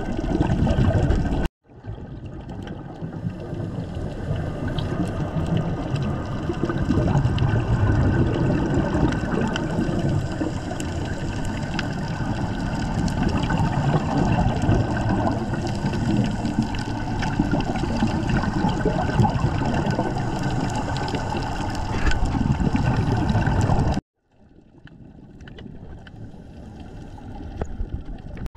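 Muffled underwater noise picked up by a diving camera: a steady rush of water with gurgling. It breaks off briefly about a second and a half in, and is quieter for the last few seconds.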